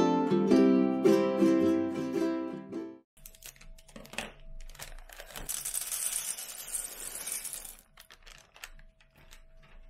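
Plucked-string background music that stops abruptly about three seconds in. After a few clicks, dry red kidney beans are poured from a bag into a stainless steel saucepan, a dense rattling patter lasting about two seconds.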